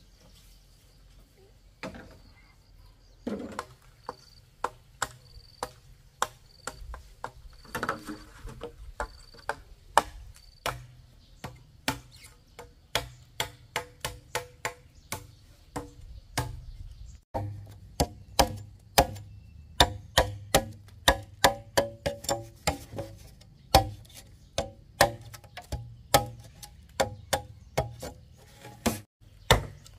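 A hand tool striking repeatedly, chopping or hammering: a few blows at first, then a steady run of about two sharp blows a second from a little past halfway.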